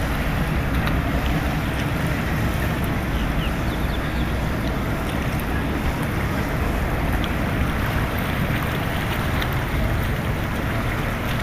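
Steady wind buffeting the microphone over a wash of water and boat noise on open harbour water.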